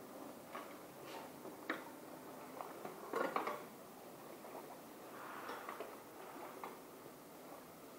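Faint, scattered light clicks and clinks, with a short cluster of louder knocks about three seconds in.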